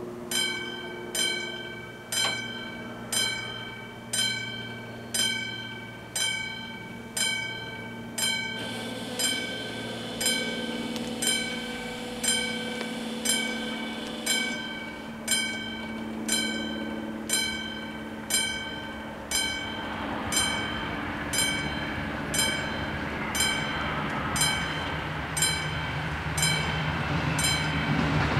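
Level-crossing warning bell striking steadily about once a second, each strike a bright ringing ding, warning that a train is coming. From about twenty seconds in, the rumble of the approaching Talent train rises beneath the bell and grows louder toward the end.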